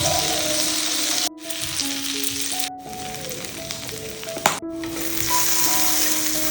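Bread rolls sizzling as they fry in hot oil: a steady crackling hiss that cuts off abruptly three times and comes straight back. There is one sharp click about four and a half seconds in, over soft piano background music.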